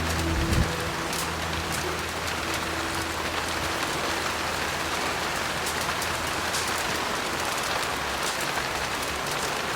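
Heavy, steady rain, a dense even hiss with scattered sharper drop ticks. In the first few seconds a low piano chord rings out and fades away.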